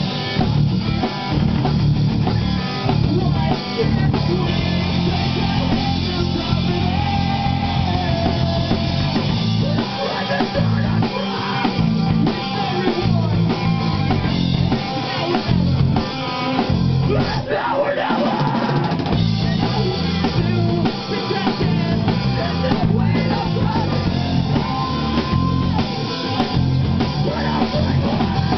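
Rock band playing live, with drum kit and guitar.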